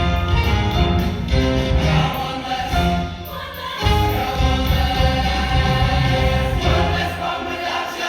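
A choir singing a pop-song medley over instrumental backing with a heavy bass line. The music thins out for a moment about three seconds in, then comes back in full.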